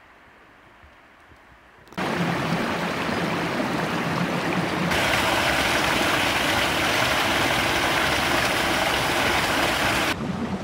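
Faint low background noise, then about two seconds in the loud, steady rush of a river starts abruptly. At about five seconds it turns brighter and hissier, as from a closer stretch of rushing water.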